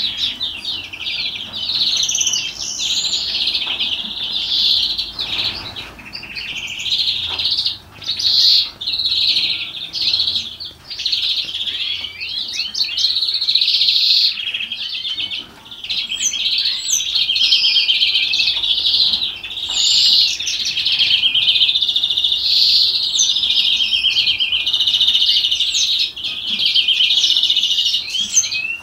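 Caged European greenfinch singing a long run of rapid rolling trills and twittering notes, the 'salma' song that breeders prize. It breaks off briefly a few times.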